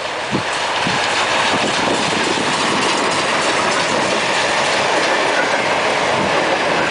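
Steam locomotive Ok22-31 passing close at speed with its passenger train: a low exhaust chuff near the start, then from about a second in a loud, steady clatter of wheels and running gear on the rails as it goes by.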